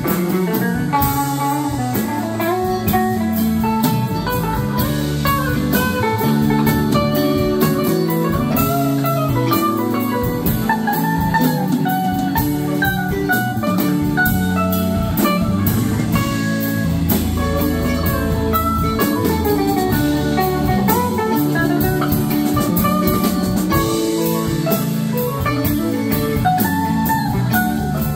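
Live rock band playing an instrumental stretch with no vocals: an electric guitar lead line bending and wandering over drum kit and the rest of the band.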